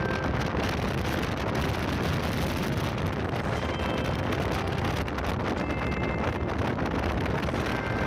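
Steady wind rushing over the microphone, with a constant low rumble beneath it.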